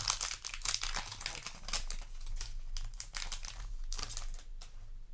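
Foil booster pack wrapper crinkling as it is handled and opened, a run of irregular crackles.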